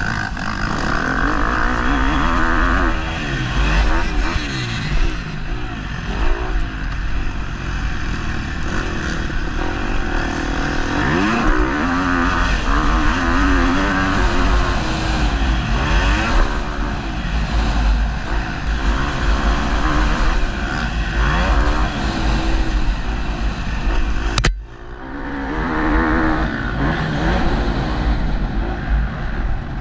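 Motocross bike engine revving up and down again and again as it is ridden hard around a dirt track, over a constant low rumble. The sound breaks off briefly about five seconds before the end, then picks up again.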